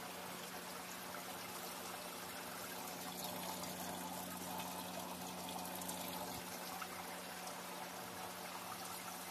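Steady trickling, running water with a steady low hum under it; the water grows a little louder around the middle.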